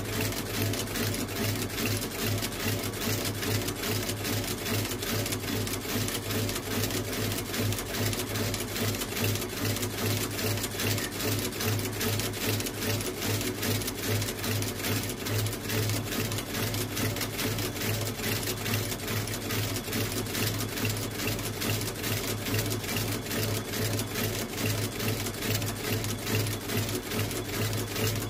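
Shoe sole-stitching machine running steadily, stitching a new leather sole and welt: a rapid, even clatter of needle strokes over the steady hum of its motor. It is stitching through a thick sole.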